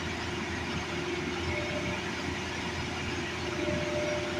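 Hitachi excavator's diesel engine running steadily under work, with a short high squealing tone twice, the second one longer, near the middle and toward the end.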